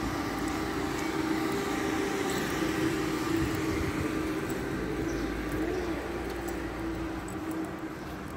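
Street ambience with a steady, low mechanical hum.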